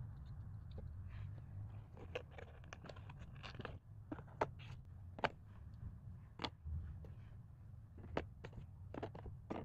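Faint clicks, taps and scrapes of stiff paper 3D-puzzle pieces being handled and slotted together, irregular and thickest in the middle, over a steady low hum.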